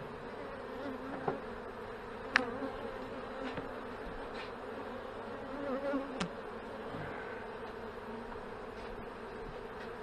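Honey bees humming steadily around an open hive packed with bees. A couple of sharp clicks cut through the hum, the loudest about two seconds in and another about six seconds in.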